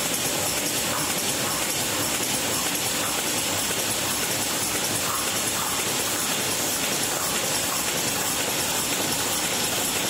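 Wine capsule making machine running: a steady mechanical clatter with a constant hiss.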